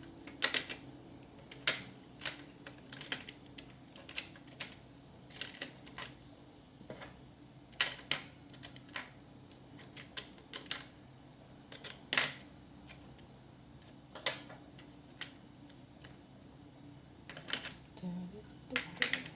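Irregular small metallic clicks, taps and clinks of hand tools and small metal parts being handled while an electrical wall socket is taken apart, with a couple of sharper clicks about two and twelve seconds in.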